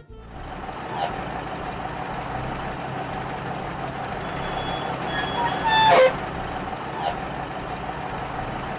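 Cartoon dump truck engine sound effect running steadily. About four to six seconds in, a run of higher tones ends in a falling, horn-like glide, the loudest moment, and short clicks come about a second in and about seven seconds in.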